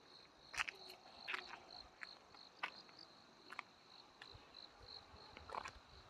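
Crickets chirping in a steady, high, pulsing trill of about three pulses a second, with a few short sharp sounds over it.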